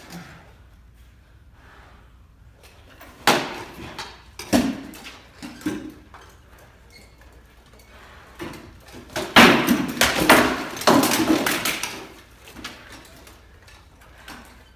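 Sparring swords striking shields and armour with sharp wooden knocks: a few single blows about three to six seconds in, then a rapid flurry of hits from about nine to twelve seconds.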